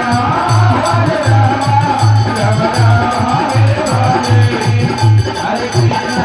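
Devotional kirtan music: a low drum beat about twice a second, with jingling hand percussion and a wavering melody line over it.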